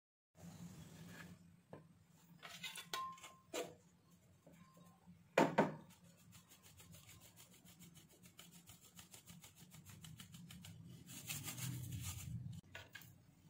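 A metal sieve shaken over a glass bowl to sift flour, giving a fast run of light, even ticks with rubbing, then a louder rustling rub near the end. Earlier come a few clicks and one sharp knock, the loudest sound, about five seconds in.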